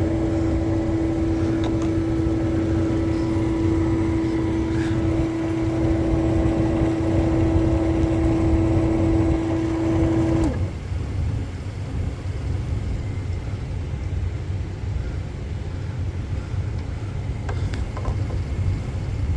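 Running air-conditioning equipment: a steady hum over a low rumble. The hum cuts off suddenly about ten seconds in, leaving the low rumble.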